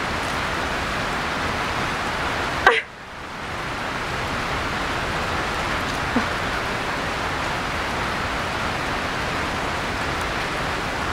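Steady hiss of rain falling on the pond and the bank, with one sharp knock a little under three seconds in.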